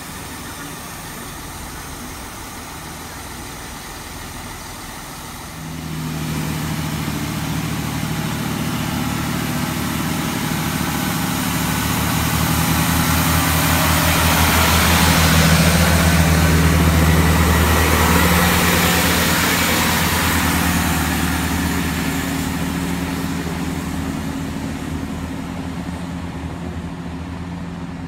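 Two-car Class 165 diesel multiple unit pulling away: its diesel engines throttle up about six seconds in with a low, pulsing engine note that grows louder as the train runs close past, then fades as it moves off.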